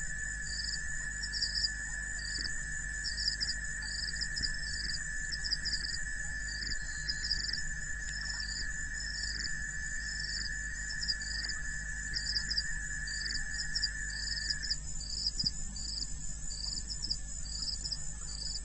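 Insects calling at a waterhole: short chirps repeating in quick clusters high up, over a steady high buzz that stops about fifteen seconds in, with a low steady hum underneath.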